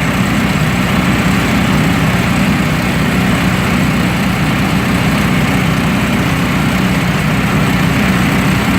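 Snowblower's small gasoline engine running steadily, driving the auger through its centrifugal clutch.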